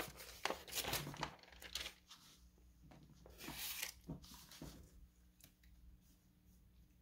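Paper rustling and crinkling in several short bursts as book pages are turned, quieter toward the end.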